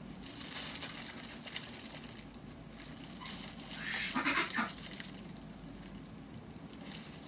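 A duck quacks once about four seconds in, a short raspy call, over the faint crinkle of bubble wrap being handled.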